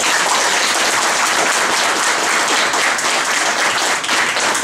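An audience applauding, steady clapping after a speaker finishes.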